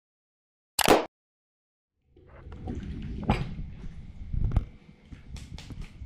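A short, sharp click sound effect about a second in, timed with the animated subscribe button being clicked. From about two seconds in there is room noise with scattered knocks and taps of things being handled on a table.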